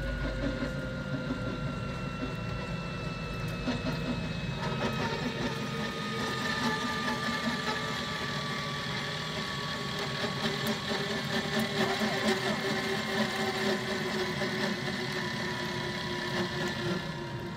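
An engine running steadily, with several faint tones that slowly fall in pitch.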